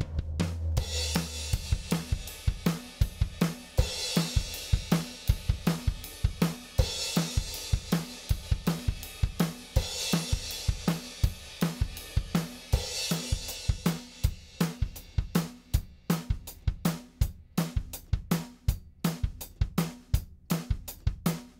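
Recorded drum kit playing a steady groove, kick, snare and hi-hat, with a cymbal crash about every three seconds, heard as an audio example run through an elysia xpressor 500 compressor. A low bass note sounds under the first second and then stops.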